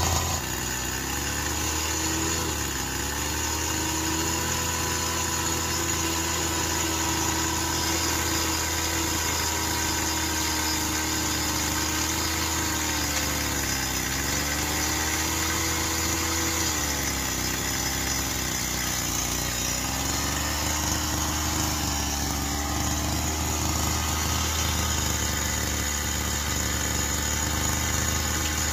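Homemade radio-controlled CAT 390F model excavator running: a steady low hum with a whine on top that sags in pitch a few times as the machine drives and works.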